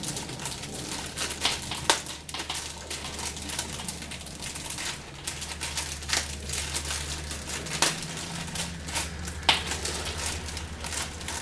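Plastic wrapping crinkling as a keyboard is unwrapped by hand, with scattered sharp clicks and rustles; the loudest snaps come about two seconds in and near the end.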